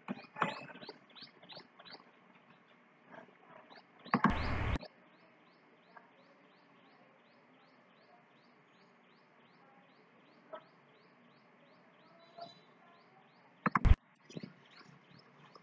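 A bird chirping over and over in the background, short high chirps at about three a second. A loud half-second burst of noise comes about four seconds in, and a sharp knock comes near the end.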